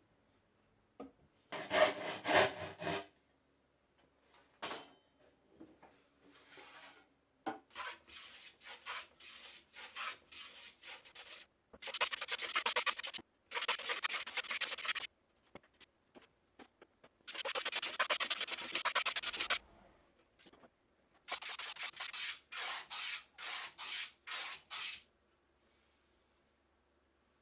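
A hand tool worked on wood in repeated strokes, each a scraping sound of one to two seconds, with a run of shorter, quicker strokes partway through.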